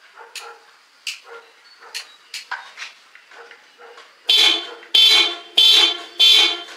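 A three-wheeled vehicle's horn sounding four times in quick succession, each blast about half a second long and steady in pitch, starting a little past the middle. A few short, quieter sounds come before the blasts.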